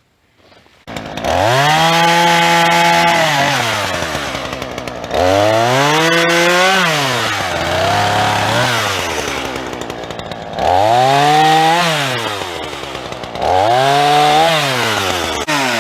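16-inch chainsaw revving up and then dropping in pitch as it bogs under load in the wood, four times in a row. Each spell starts with a sudden rise and sags down again.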